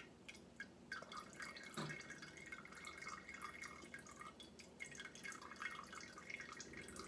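Herb-infused oil draining from a mesh strainer into a container below: a faint, irregular patter of small drips.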